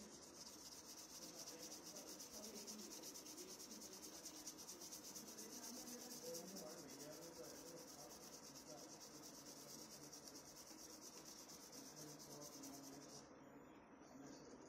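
A cricket's high-pitched continuous trill, a rapid even pulsing that cuts off abruptly about thirteen seconds in, leaving a fainter, more distant insect trill.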